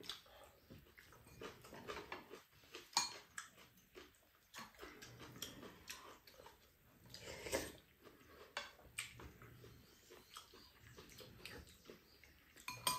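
Faint eating sounds: a metal spoon and chopsticks clicking against a frying pan and bowls every few seconds, with quiet chewing.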